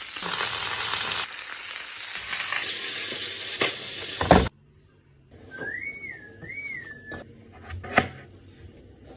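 Chicken frying in hot oil in a pan, a loud steady sizzle that cuts off abruptly about halfway through. Then it is quieter: a short two-note whistle-like tone, then a sharp knock near the end.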